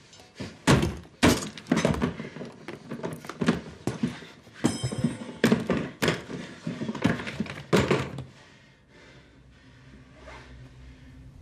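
A crowbar striking and prying at hard plastic storage trunks: a rapid series of loud thunks and cracks as the lids are forced open, lasting about eight seconds before it goes quiet.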